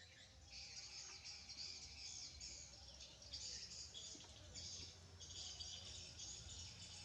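Faint high-pitched insect chorus, a dense buzzing trill that swells and drops in overlapping stretches of about a second, over a low background hum.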